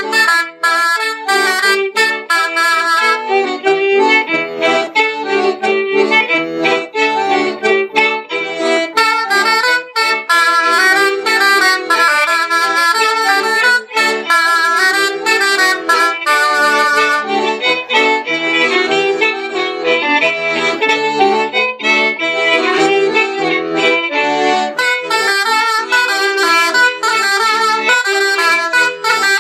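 Breton hanter dro dance tune played by a folk ensemble of accordion, fiddle, wooden transverse flute and whistle, the melody carried in unison at a steady, even dance pulse.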